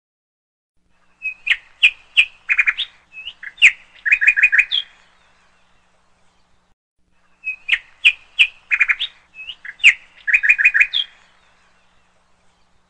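Bird chirping and trilling: a phrase of sharp chirps ending in quick trills, played twice over in exactly the same form with a pause of about two and a half seconds between, as a looped sound effect.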